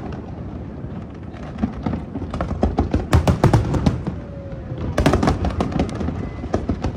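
Aerial fireworks display: shells bursting in rapid volleys of bangs and crackles over a steady low rumble, densest about two and a half seconds in and again at five seconds.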